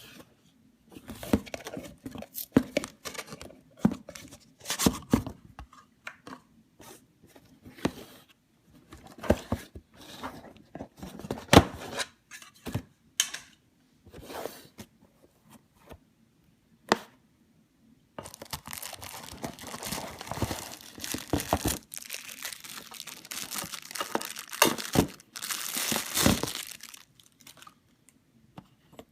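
Packaging being unwrapped by hand: plastic and paper crinkling and tearing, with scattered handling clicks and knocks at first, then a long run of steady crinkling and rustling in the second half.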